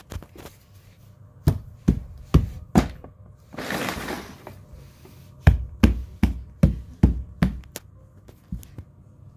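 Footsteps in two runs, about four steps and then six or seven, a little over two a second, with a brief rustle of handling between them.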